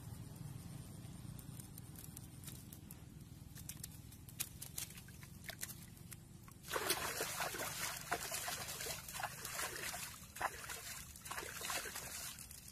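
Hands splashing and sloshing in shallow muddy water at a pond's edge. It starts suddenly a little past halfway through and goes on as irregular splashes until near the end.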